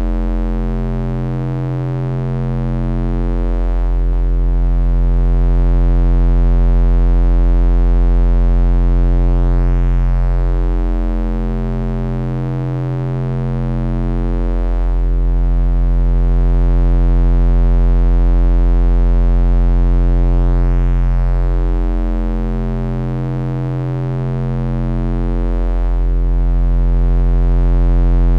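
Synthesized bass drone: a deep, steady electronic hum of stacked sine tones. It swells and fades slowly, dipping about every eleven seconds, with a faint sweeping shimmer up high.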